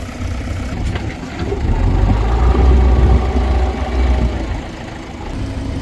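Heavy diesel engine running, working harder in the middle: its low rumble swells to its loudest about two to four seconds in, then eases back.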